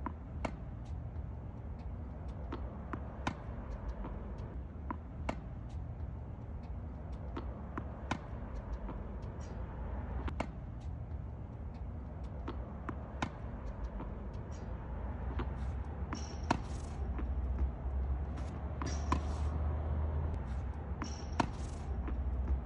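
Tennis ball being struck with a racket and bouncing on a hard court: sharp, irregular pops a second or two apart over a steady low rumble, with a few brief scraping sounds in the last several seconds.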